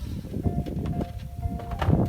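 Background music playing a simple melody of short held notes, over low work noise with small clicks and a sharp knock near the end.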